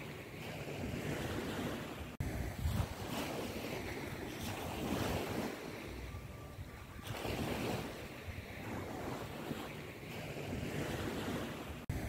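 Wind buffeting the microphone: a rushing noise that swells and fades in gusts every second or two, cutting out briefly about two seconds in and again near the end.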